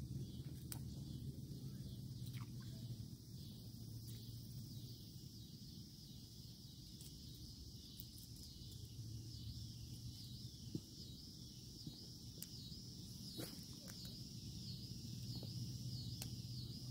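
Faint evening outdoor ambience: a high insect chorus that settles into a regular wavering pulse in the second half, over a low steady hum, with a few soft clicks.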